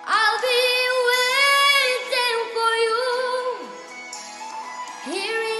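A young girl singing a pop ballad, holding long loud notes with vibrato and pitch slides. Her voice drops back about four seconds in, then swells again near the end.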